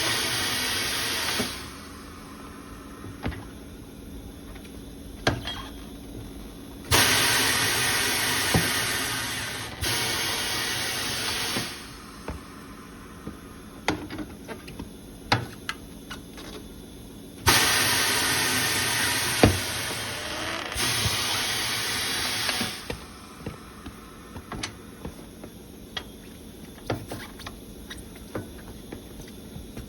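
Compressed air hissing in five bursts of a few seconds each from a pneumatic tyre changer working to break the scooter tyre's bead, with clicks and knocks of metal tools between the bursts.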